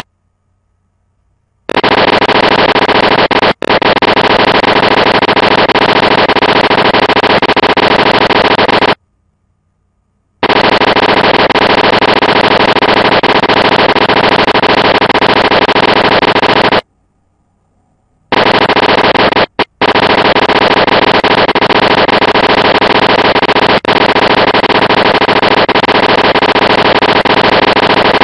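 Typewriter-style typing sound effect: a fast, unbroken stream of clicks that runs for several seconds at a time, stopping three times for a second or so of silence, synced to text being typed out on screen letter by letter.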